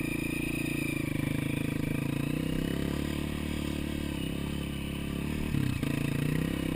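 Trail motorcycle engine running at fairly steady revs, with a short change in pitch about five and a half seconds in.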